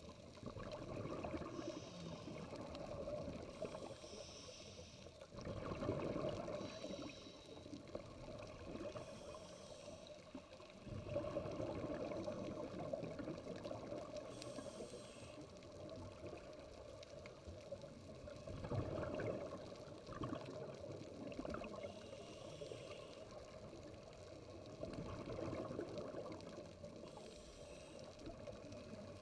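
Underwater camera audio: a low rushing of moving water over a sandy seabed, swelling and fading every few seconds.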